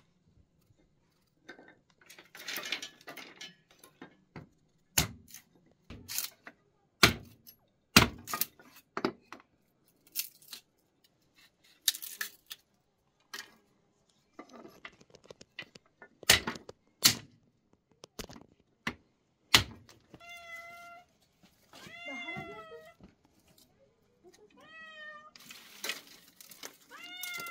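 Dry sticks being broken for kindling: a run of separate sharp cracks and knocks. In the last third a cat meows over and over, short rising-and-falling meows about a second apart.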